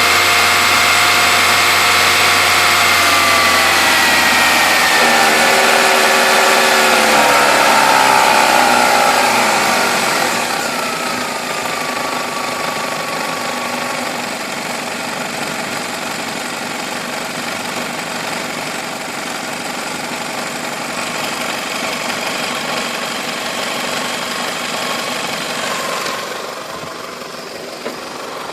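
Toyota 5S-FE 2.2-litre four-cylinder engine held at a raised speed, then slowly dropping back toward idle; its pitch falls steadily over several seconds before settling lower and steadier. This slow drop through the low-to-medium RPM range is where the owner hears a vibrating 'bearing' noise, on an engine showing blow-by that he suspects has worn piston rings.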